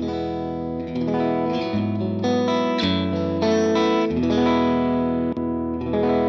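Electric guitar played through a NUX Ace of Tone dual overdrive pedal: a run of ringing chords that change about every half second, with a fresh strummed chord near the end.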